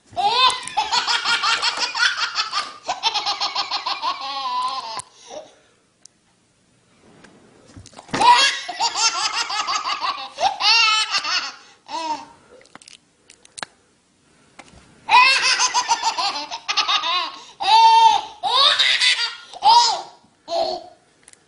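A baby laughing hard: three long fits of rapid, high-pitched belly laughter with pauses of a few seconds between them.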